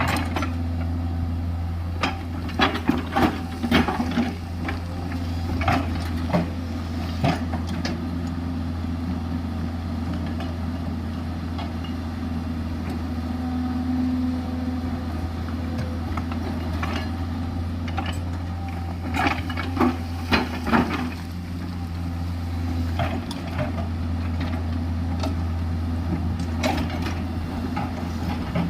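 JCB 210LC tracked excavator's diesel engine running steadily with a low hum, broken by two clusters of sharp knocks and clatter, a couple of seconds in and again about two-thirds of the way through.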